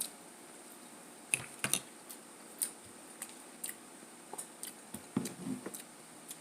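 Eating sounds: scattered soft clicks and taps from chewing and utensils at a breakfast plate, with a short low mouth sound about five seconds in.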